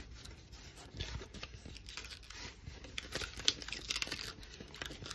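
Dried liquid latex being peeled slowly off a styrofoam mannequin head: faint, irregular crackling and tearing as the thin latex skin pulls away from the foam.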